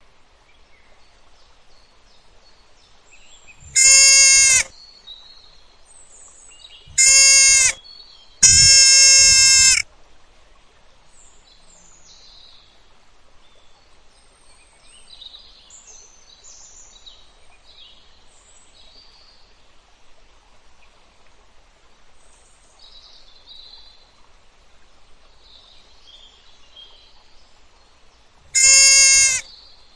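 Four loud bleats, each held on one steady pitch: three in the first ten seconds, the third the longest at over a second, and one near the end. Faint scattered high chirps sound between them.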